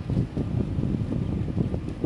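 Wind buffeting the microphone, a loud uneven low rumble that rises and falls in gusts.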